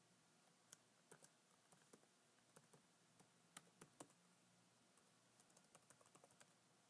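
Faint typing on a laptop keyboard: scattered single keystrokes, then a quicker run of keys near the end, as a password is typed in again.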